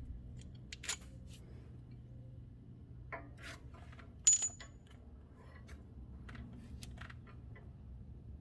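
Small metal parts of a sway bar end link clinking and tapping as they are handled. One sharp metallic clink rings briefly about four seconds in.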